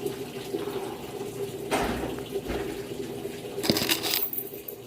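Panasonic 14 kg washing machine filling with water for the rinse: water pouring into the drum, with a steady hum under it and two louder surges of splashing.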